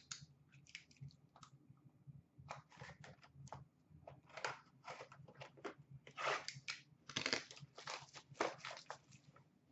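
Small cardboard trading-card box being torn open by hand and its contents handled: faint, irregular tearing and crinkling of card stock, sparse at first and busier from about two and a half seconds in.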